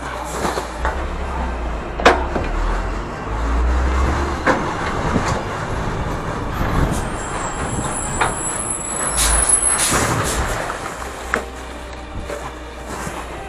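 Garbage truck engine running with a steady low rumble, a sharp knock about two seconds in as bags land in the rear hopper. Later comes a high squeal, then a short burst of hiss as the truck stops.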